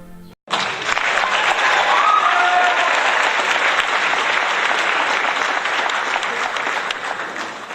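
Applause from a crowd, starting abruptly about half a second in, holding steady and tailing off right at the end.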